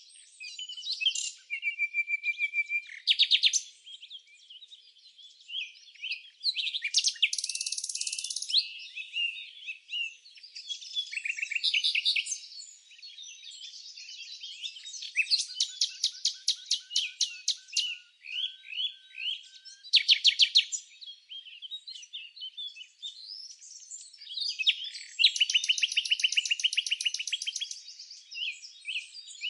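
Songbirds chirping and singing, with several birds overlapping. The calls are short chirps and repeated rapid trills, all high-pitched, with no low sounds beneath them.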